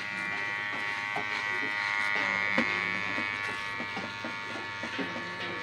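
Electric hair clipper with a 1.5 guide comb buzzing steadily as it cuts short hair.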